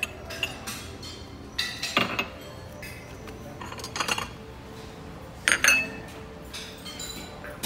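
White porcelain coffee cups and saucers clinking as a cup is taken from a tray of cups and set down with its saucer on a stone counter. A few separate sharp clinks, the loudest a double clink about two-thirds of the way through.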